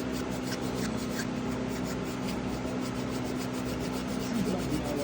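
Scotch-Brite abrasive pad scrubbing against the metal of a pocket knife in quick repeated back-and-forth strokes, over a steady low hum.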